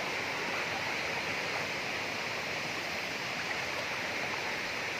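Steady rush of water pouring down a waterfall cascade.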